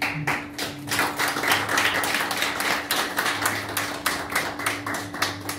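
A small audience clapping: dense, uneven hand claps that stop near the end.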